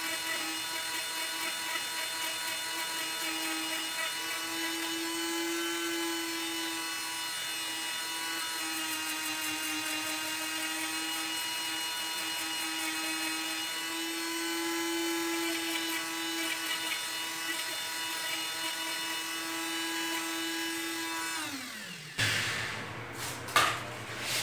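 Hammer pen-style electric micro-motor sander with a small sanding drum, running with a steady high whine as it sands EVA foam to take off glue marks. About 21 seconds in it is switched off and the whine falls in pitch as it spins down, followed by a few clicks of the foam being handled.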